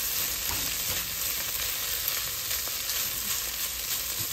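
Ground beef and dry Rice-A-Roni sizzling in a hot pot as the rice toasts, stirred with a silicone spatula: a steady frying hiss.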